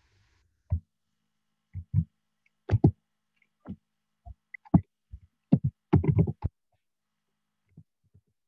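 Computer keyboard keystrokes picked up by the microphone: short, irregular taps in clusters, stopping about six and a half seconds in.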